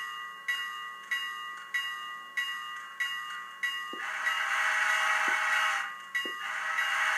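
Athearn Big Boy model steam locomotive's sound decoder ringing its bell, about one and a half strikes a second, then sounding its steam whistle: one long blast about four seconds in and a second blast starting near the end.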